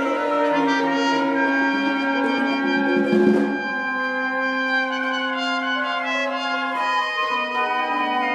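Live chamber ensemble playing held chords, with trumpet and French horn prominent, and a brief percussion crash about three seconds in.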